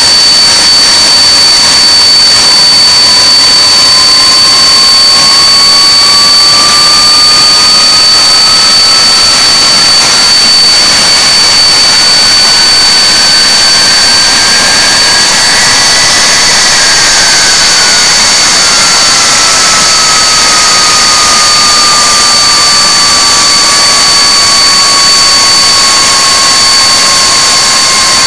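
Rolls-Royce Conway turbofan engines of a Handley Page Victor K2 running on the ground, a loud steady jet rush with a high-pitched whine. A second, lower whine climbs in pitch over the first half and sinks back over the second half as engine speed goes up and comes down again.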